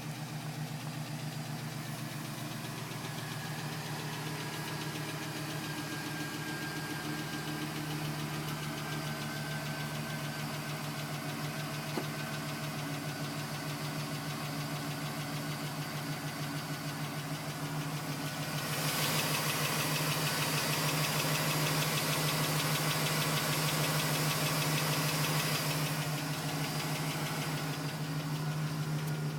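Pickup truck engine idling steadily with a knock that the owner suspects may be piston slap. From about 19 to 26 seconds a louder hiss joins it.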